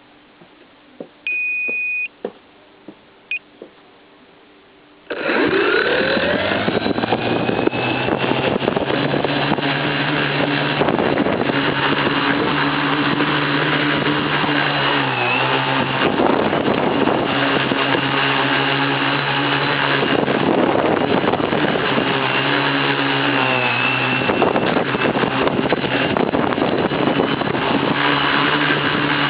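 A short electronic beep and a few clicks, then about five seconds in the tricopter's electric motors and propellers spin up with a rising whine and run loudly, the pitch shifting up and down as the throttle is worked through takeoffs and touch-and-goes.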